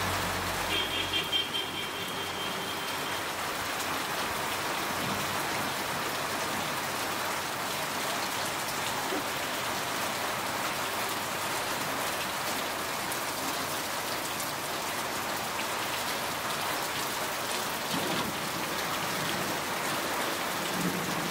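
Heavy rain falling steadily, splashing on wet ground and into water-filled metal basins.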